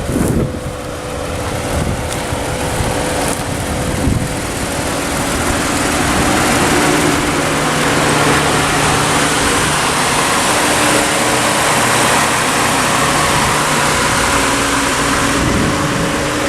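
Lexus IS350's 3.5-litre V6 engine running steadily, growing louder over the first several seconds and then holding even.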